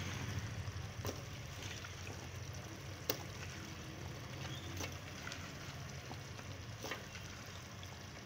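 Camel-meat keema frying quietly in a pot with a steady low hum, broken by a few sharp light knocks as pieces of raw potato are dropped in.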